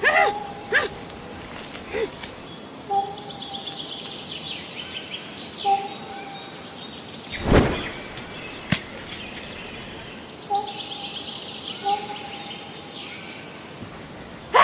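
Forest ambience of birds chirping and calling, with short whistled notes repeating every few seconds over a steady high tone. A single dull thud comes about halfway through.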